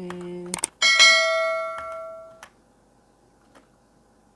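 A single bell-like chime struck about a second in, ringing with several steady tones that fade for about a second and a half, then cut off abruptly. A few faint clicks follow.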